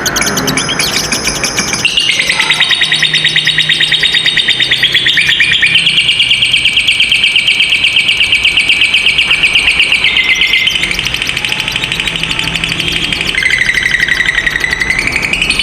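Lovebird 'ngekek': a long, very fast rattling trill of high chirps, held for many seconds and stepping between a few pitches. It is the sustained chatter that keepers prize in a singing lovebird.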